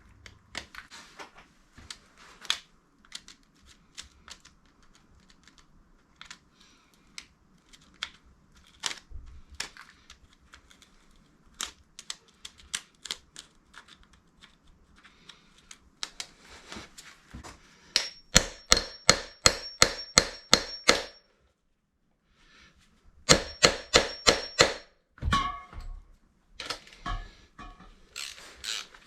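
Hand tools and metal engine parts clinking and knocking as a Kawasaki KZ400 engine is taken apart. There are two runs of quick, even clicks, about four a second, the first a little over halfway through and the second shortly after.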